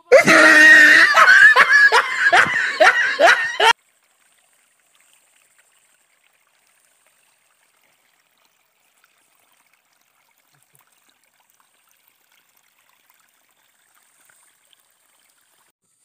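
Loud laughing and shouting voices in quick repeated pulses for nearly four seconds, cutting off suddenly, followed by near silence.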